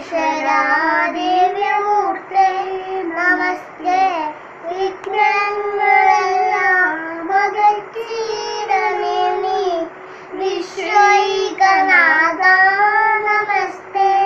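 A young girl chanting Hindu devotional names (nāmam japam) in a sing-song melody, one held, bending phrase after another with short breaks between them.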